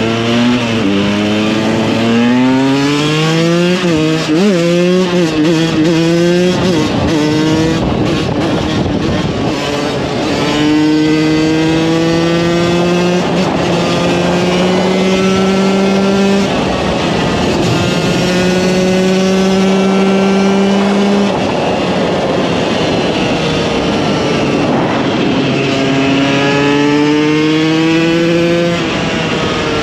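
KTM 125 EXC two-stroke single-cylinder engine under way, revving up and shifting through the gears several times. It holds steady revs for a long stretch in the middle, then falls away and climbs again through the gears near the end.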